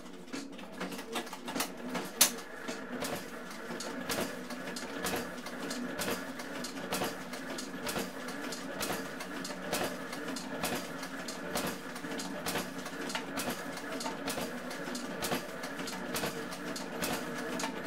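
Concrete machine running: a steady mechanical hum with frequent irregular clicks and knocks, and one sharper crack about two seconds in.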